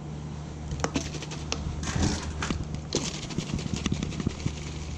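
Scattered clicks and knocks of small hard objects being handled, with brief rushes of noise about two and three seconds in, over a steady low hum.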